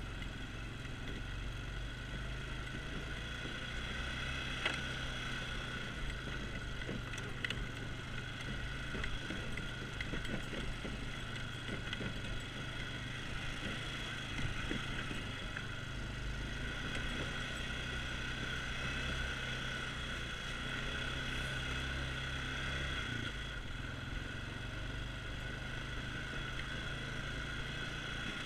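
An ATV's engine runs steadily while the quad is ridden over rough, rutted ground. There are a couple of sharp knocks in the first several seconds.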